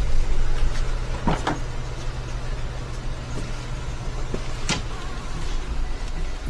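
A car running, heard from inside the cabin as a steady low hum, with a few sharp clicks or knocks, the clearest about a second and a half in and near five seconds in.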